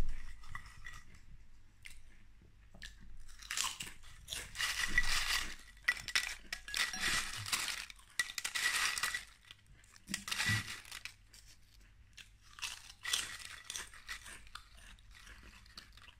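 Paprika potato chips being bitten and chewed close to the microphone: several bursts of crisp crunching with short quieter pauses between them.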